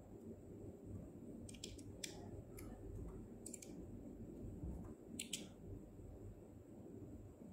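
LEGO bricks clicking as pieces are pressed and snapped together on a small model: about five sharp clicks, several in quick doubles, over a low handling rumble.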